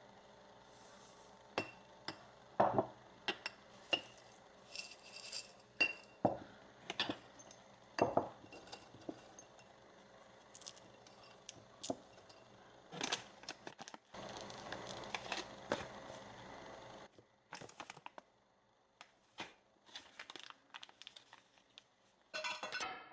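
Kitchen handling sounds: glassware and utensils clinking, tapping and knocking at irregular intervals, with a steady hiss lasting about three seconds past the middle.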